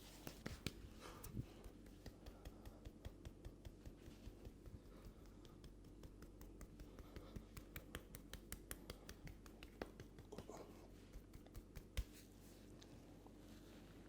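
Hands working over a head in a massage, making a steady run of sharp clicks and snaps, about three or four a second, with one louder snap near the end.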